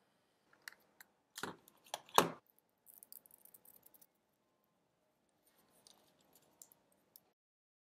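A handheld label maker and its printed label tape being handled: a few sharp clicks and snaps, the loudest about one and a half to two seconds in, then faint crinkling of the tape being peeled and worked between the fingers. It stops about seven seconds in.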